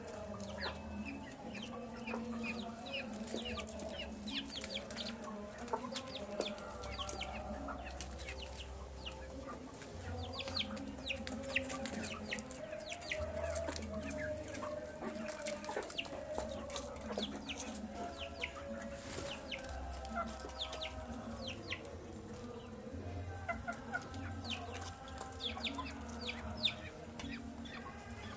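Young chickens peeping and clucking as they feed: many short high peeps over lower clucks, with frequent sharp clicks mixed in.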